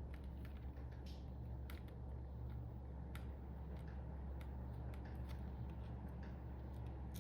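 Keycaps being pulled off a mechanical keyboard one by one: short, sharp plastic clicks at irregular intervals, about one a second, over a steady low hum.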